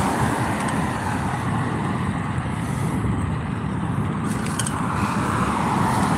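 Wind buffeting a phone's microphone on a moving bicycle, mixed with the rushing noise of a car on the road, which swells near the end.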